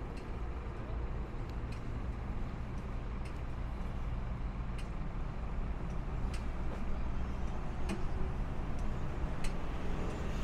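A truck engine idling with a steady low rumble under city traffic noise. Over it, the slow locator tick of a pedestrian crossing signal sounds about once every second and a half, getting louder toward the end.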